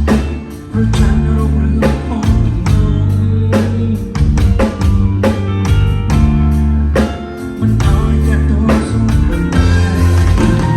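Live band playing a song with drum kit, bass and guitar, the drums striking about twice a second over a steady bass line.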